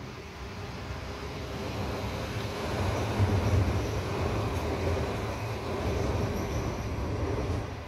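Suburban passenger train crossing a railway bridge: a rumble of wheels on rails that builds, is loudest about three seconds in, holds, and eases off near the end.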